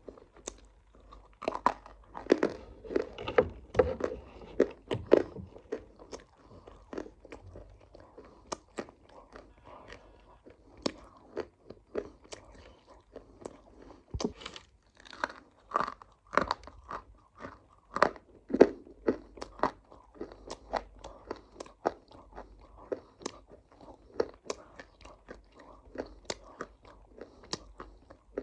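Close-up crunchy chewing and biting: many sharp crunches at an irregular pace, thickest a few seconds in and again past the middle.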